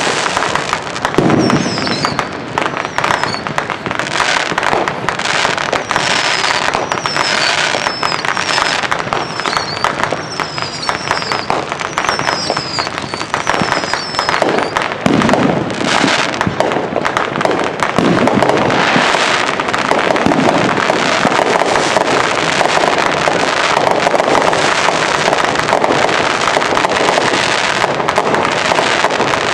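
A consumer fireworks finale: a continuous barrage of bangs and crackling, with heavier booms now and then. Short falling whistles run through the first half, and the crackle grows denser and steadier in the second half.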